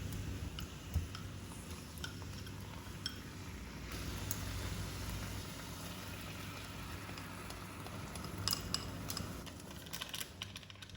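Kitchen handling sounds: light clinks and taps of utensils and dishes over a steady low hum, with a cluster of clinks near the end.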